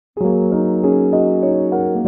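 Background music on electric piano: a held low note under a steady run of higher notes, about three a second, starting a moment in.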